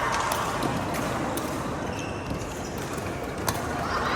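Badminton rally: a few sharp clicks of rackets striking the shuttlecock over steady hall noise, the loudest hit about three and a half seconds in.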